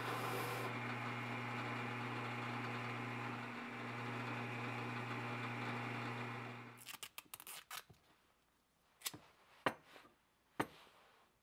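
Electric drill press motor running with a steady hum, stopping about seven seconds in. Then a run of small clicks and a few sharp clicks of small parts being handled.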